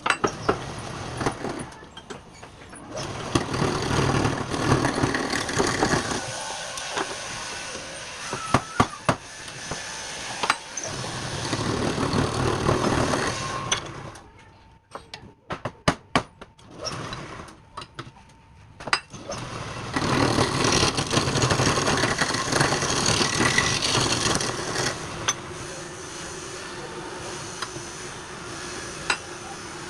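Wood lathe running while a turning tool cuts into the spinning wood: a rough, hissing cut that swells and fades in bouts. Between the cuts come sharp knocks and clicks and a faint steady hum.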